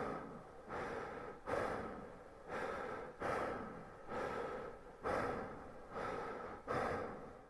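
A person breathing heavily and fast, rapid breaths a little more than one a second, each one rising sharply and trailing off, fading away near the end.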